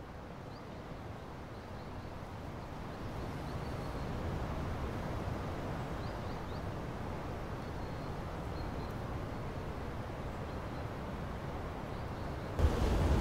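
Steady outdoor wind ambience with a low rush and a few faint, high bird chirps here and there. Near the end it cuts suddenly to a louder rush of wind and surf.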